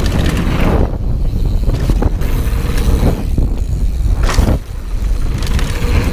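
Wind buffeting an action camera's microphone during a fast mountain-bike descent, a steady rumble, with the Polygon Siskiu N9 enduro bike's tyres and frame clattering over trail bumps in a few short hits, the strongest about four seconds in.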